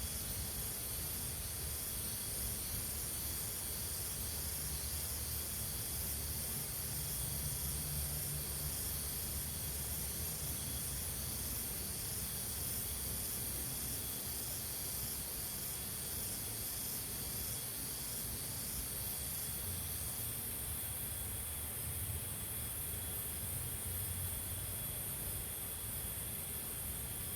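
Pesticide sprayer nozzle spraying a steady hiss onto chili plants; part of the sharper, higher hiss drops out about twenty seconds in.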